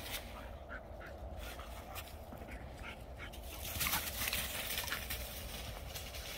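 Flat-coated retrievers running and scuffling over dry fallen leaves and grass, with irregular crunching and rustling, loudest around four seconds in as the dogs pass close.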